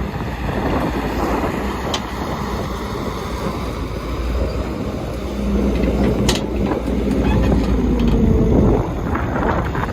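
Heavy diesel earthmoving machinery running. The engine note rises and holds under load from about halfway, then drops back near the end. A few sharp knocks cut through.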